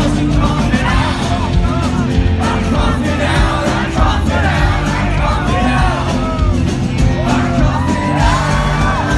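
Live indie rock band playing loudly with drums, bass and guitar while the crowd yells and sings along.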